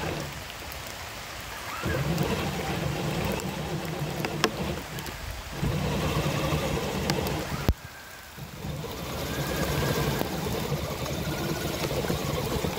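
Electric motor and gear drivetrain of an RC crawler whining as it crawls over a wet, leafy trail, cutting out and starting again three times as the throttle is let off and reapplied, with scattered clicks from the tyres and chassis bumping over sticks and debris.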